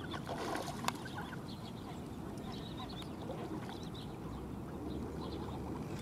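Faint pond ambience: a steady low background with scattered distant duck calls, and a single sharp click about a second in.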